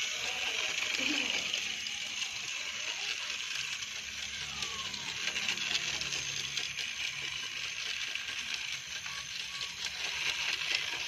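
Battery-powered Railking toy locomotives running: a steady whirr of their small motors and gears with fast fine ticking.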